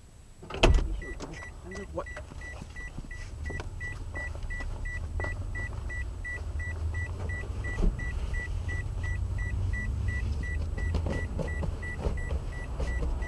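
A car engine starts with a sudden burst about a second in and then settles into a steady idle. Meanwhile a high electronic warning chime beeps over and over at an even pace.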